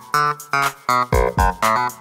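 Background music: a run of short plucked notes over a steady beat of about two low thumps a second.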